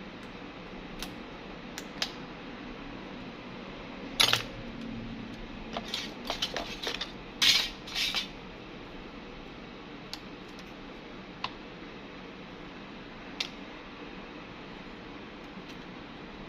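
Small hard clicks and taps of repair tools and phone parts handled on a workbench: a few scattered ticks, a busier cluster of clicks and scrapes from about four to eight seconds in, then single ticks now and then, over a steady low hiss.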